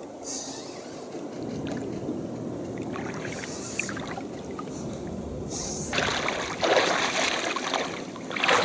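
Shallow water splashing as a catch on a spinning rod is pulled in to the shore, over a steady low rush. The splashing grows louder and busier in the last few seconds as the catch is lifted out.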